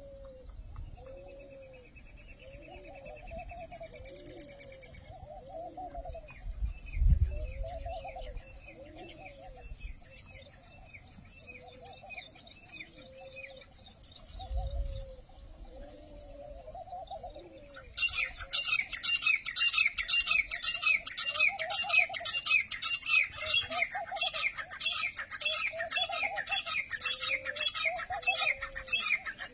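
Birds calling: repeated low cooing of doves, about one call a second, with fainter high chirping from small birds. About eighteen seconds in, loud rapid chirping starts up and keeps on; two low thumps come earlier, the first the loudest moment.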